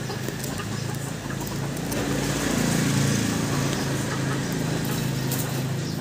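A motor engine running steadily nearby, swelling to its loudest about three seconds in and easing off toward the end.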